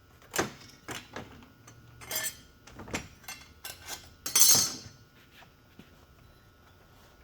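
Clinks, knocks and clatter of hand tools and small parts being handled on a shop bench, about a dozen sharp hits with a louder scraping clatter about four and a half seconds in; quiet after about five seconds.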